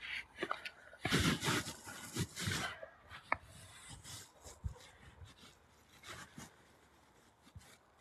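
Crunching and scuffing of footsteps and paws on a snowy dirt trail, mixed with rubbing noise. The crunching is loudest about a second in for two seconds, with a sharp click just after, then thins to faint, scattered scuffs.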